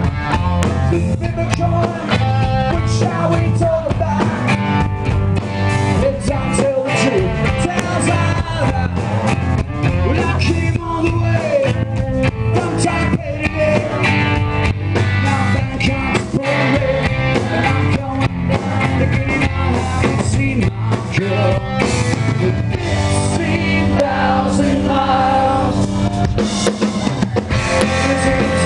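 Live rock band performing: a male lead singer over electric guitar and a drum kit.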